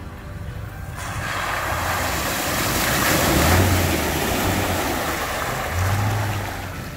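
Jeep Gladiator Rubicon pickup driving through a muddy puddle close by: water splashing and spraying from its tyres, building to a peak as it passes about three to four seconds in, with the engine's low drone swelling twice.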